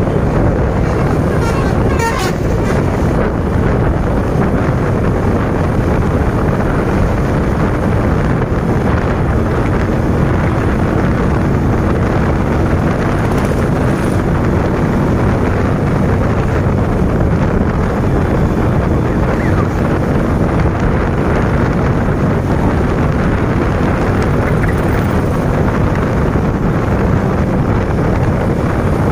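Steady rush of wind on the microphone mixed with a motorcycle's engine and road noise while riding at speed. A short sharp sound cuts through about two seconds in.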